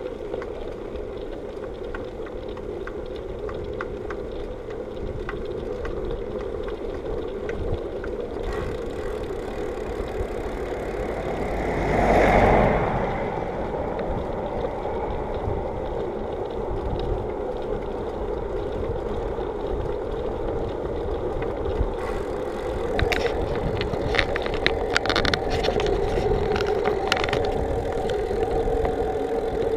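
Steady rumble of a bicycle being ridden on asphalt, with the noise of the tyres and air moving past the bike-mounted microphone. About twelve seconds in, a brief loud rush swells and fades. Near the end comes a run of sharp clicks and rattles from the bike.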